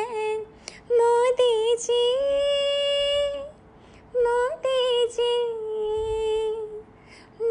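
A female voice singing unaccompanied: two long phrases of held, wavering notes, with a short break about halfway.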